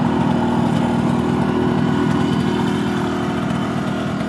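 Suzuki A100 motorcycle's single-cylinder two-stroke engine idling steadily.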